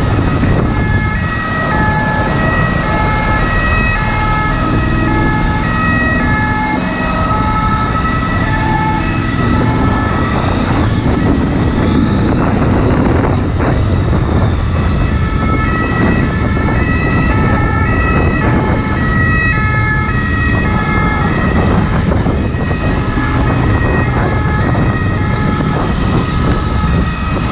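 Ambulance two-tone siren, its notes alternating back and forth. It fades for a few seconds in the middle and then comes back, over a steady rush of wind and motorcycle noise.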